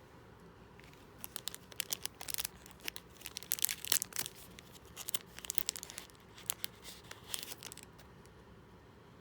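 Packaging being opened by hand: irregular crinkling and tearing crackles that start about a second in and stop about a second before the end.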